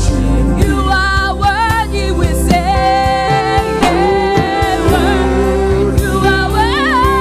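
Gospel choir music: singing with vibrato-laden melodic runs over a steady bass line and drum beat.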